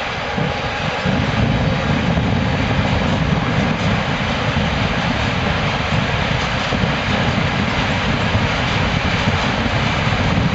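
Freight train hauled by a Siemens ES64 electric locomotive rolling past: a steady low rumble of the locomotive and wagons on the rails, growing louder about a second in and then holding.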